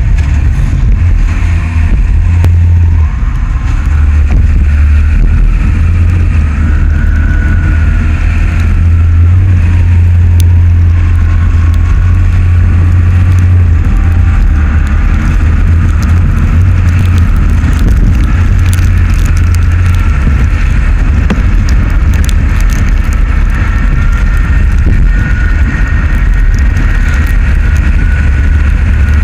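Vehicle driving along a highway: heavy low rumble of wind and road noise on a camera mounted close to the road surface, with a faint engine or tyre whine that slowly rises and falls in pitch.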